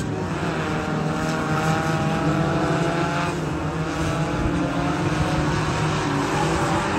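Drift cars' engines revving hard at high revs, the pitch rising and falling as the drivers work the throttle through the drift.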